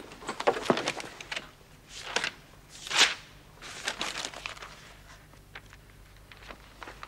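Paper rustling and crackling in short, irregular bursts, as sheets are handled and leafed through in a search; the loudest rustle comes about three seconds in, and it thins out to a few faint ticks near the end.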